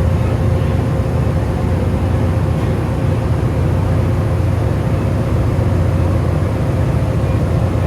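Steady, loud low rumble of a running train, with a faint steady hum above it and no change through the stretch.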